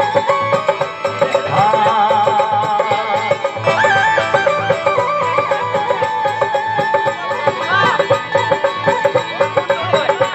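Instrumental opening of a Rajasthani folk bhajan: a melody line over a steady, even hand-drum beat.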